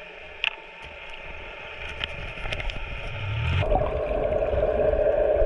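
Underwater sound picked up by a camera below the surface: a low, muffled water hiss with a few sharp clicks. About three and a half seconds in, a louder rushing water noise takes over and keeps building.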